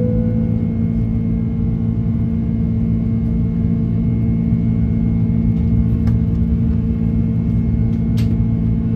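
Airbus A330 jet engine noise heard inside the passenger cabin: a steady low rumble with a constant drone of steady tones, and a faint click about eight seconds in.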